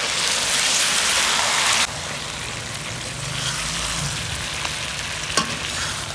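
Chicken karahi sizzling in a steel wok over a strong flame as it is stirred with a metal ladle. The sizzle drops suddenly to a quieter level about two seconds in, and a single metal clink of the ladle against the wok comes near the end.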